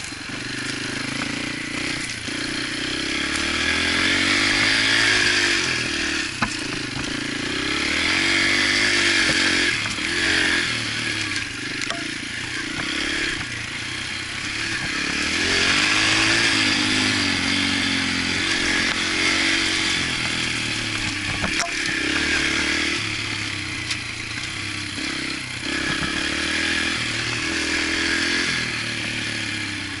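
Yamaha TT-R125 dirt bike's small four-stroke single-cylinder engine revving up and down in pitch several times while riding a rough trail, with a few sharp knocks and rattles from the bike over the ground.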